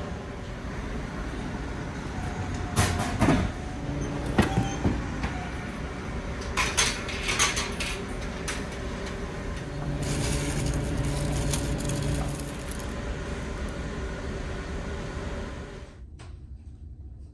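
Steady low rumble and hum of a large car ferry's engines under way, with several sharp clicks and knocks and a brief mechanical whirring about ten seconds in. Near the end the rumble drops to a quieter level.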